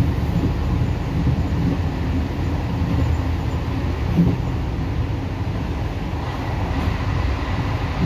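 ONCF passenger train running along the line, heard from inside the carriage: a steady low rumble of wheels on rails, with one brief louder knock about four seconds in.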